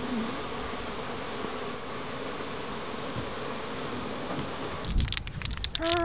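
A swarm of honey bees buzzing steadily around the hive entrance, stirred up after the hive has been opened. About five seconds in the buzzing cuts off, giving way to knocks and then a steady held tone.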